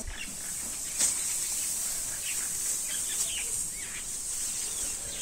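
Steady high-pitched insect buzzing with short bird chirps scattered through, and one sharp click about a second in.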